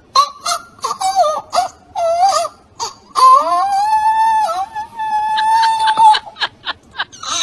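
An animal wailing: a quick run of short high cries, then one long held wail lasting nearly three seconds, then more short cries near the end.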